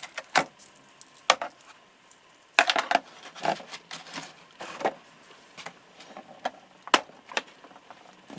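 Torch accessories and their packaging being handled: scattered clicks and rustles, with a denser patch of rustling about three seconds in and a sharp click near the seven-second mark.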